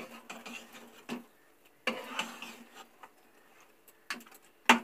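Spoon scraping and knocking against a nonstick kadai while stirring chicken pieces in thick masala: scattered clicks and short scrapes, with a sharp knock near the end.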